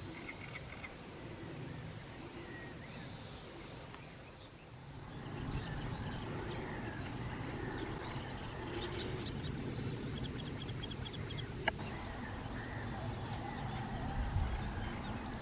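Several small wild birds chirping and trilling over a low, steady rumble, with one sharp click near the end.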